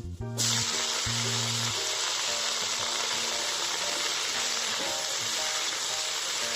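Food sizzling loudly in hot oil in a pan, starting abruptly about half a second in and then holding steady.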